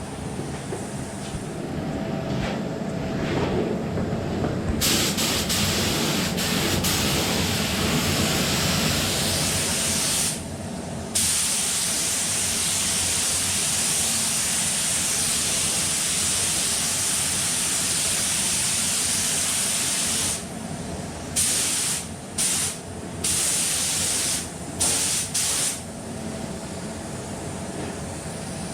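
Compressed-air paint spray gun spraying: a long steady hiss starting about five seconds in, with one short break near ten seconds, running to about twenty seconds, then five or six short trigger-pull bursts. A fainter steady air hiss runs underneath.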